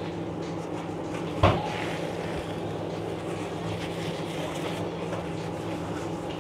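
Steady low mechanical hum and rumble of background machinery, with one sharp knock about one and a half seconds in.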